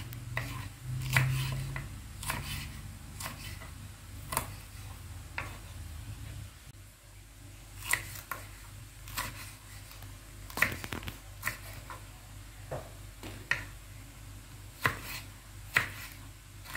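Kitchen knife slicing large green chilies and knocking on a wooden cutting board: separate, irregular chops roughly one a second.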